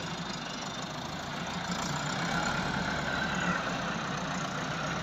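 Massey Ferguson 385 tractor's diesel engine running steadily while its front loader lifts a bale, a little louder from about two seconds in.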